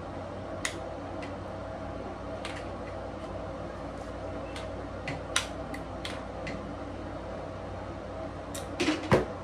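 Scattered light clicks and taps of a hair flat iron being clamped and drawn down the hair, over a steady low background hum, with a quick cluster of louder clicks near the end.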